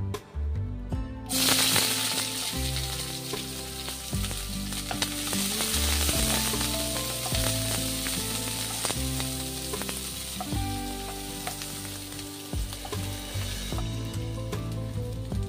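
Sliced red onions dropped into hot oil with cumin seeds, bursting into a loud sizzle about a second in, then frying and sizzling while stirred with a wooden spatula. The sizzle eases a little near the end.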